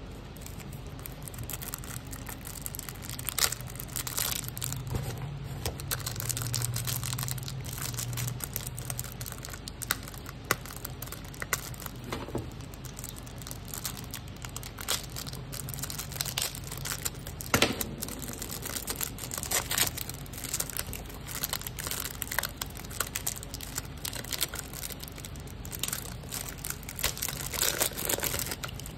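Clear cellophane wrapper being torn and peeled off a small cardboard cream box: irregular crinkling and crackling of the plastic that goes on and off throughout.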